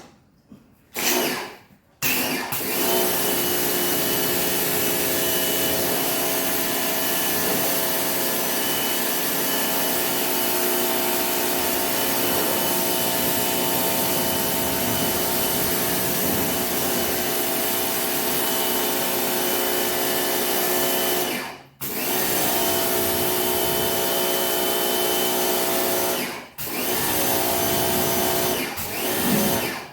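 Ryobi pressure washer's motor and pump running with a steady whine, spraying water to rinse a car. It starts after a short burst and stops briefly twice later on, as the trigger is let go.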